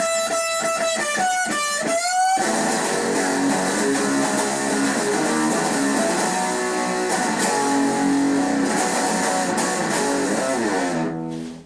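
Electric guitar: a short run of single notes with bends and slides, then strummed chords from about two and a half seconds in that ring on and fade out near the end.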